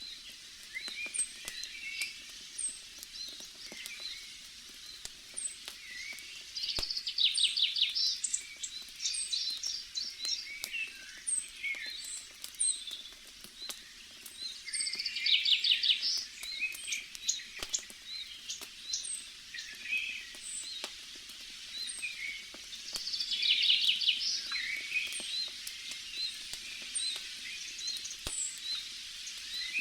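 Forest ambience of songbirds: rapid trilled phrases about every eight seconds, with short high chirps repeating in between. Faint scattered crackles of a campfire sound under the birds.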